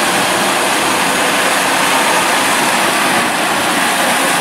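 Sea tractor driving through the shallows: a steady rush of surf and water churning around its big wheels, with the machine's engine running under it.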